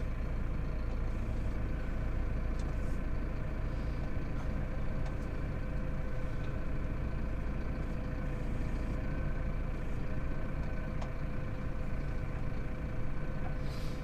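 Tractor engine running at a steady speed: a constant low drone with a steady higher tone above it.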